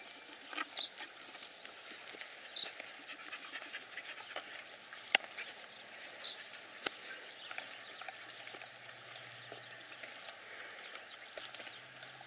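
Small long-haired dog panting and sniffing in grass, with a few short high chirps and a single sharp click about five seconds in.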